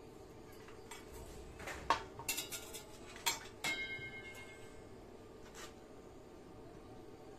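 A quick run of metallic clinks and knocks, one of which rings with a clear tone that fades over about a second. This is typical of metal parts or tools being handled or set down.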